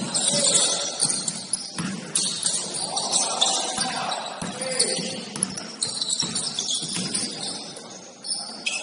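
Basketball game sound: the ball bouncing on the court among short knocks and high squeaks, with players' voices now and then.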